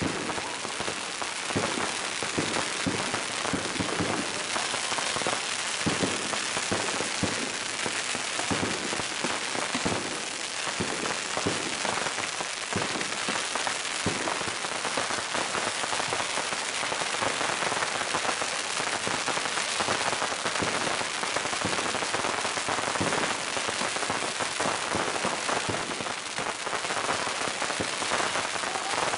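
Long hanging strings of Chinese firecrackers going off in one continuous, dense crackle of rapid small bangs that never lets up.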